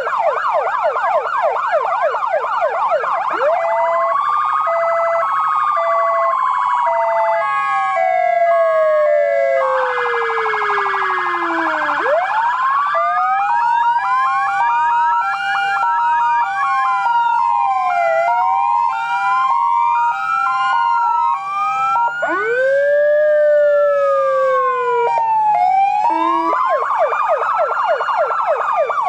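Several fire-vehicle electronic sirens sounding at once and switching through their tones: fast yelp sweeps at the start and again near the end, a long slowly falling wail, and alternating hi-lo two-tone steps, all overlapping.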